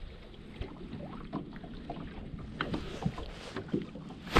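Small waves lapping against a fishing boat's hull, with wind on the microphone and light clicks and knocks of a fishing rod and reel being handled, most of them after about two and a half seconds.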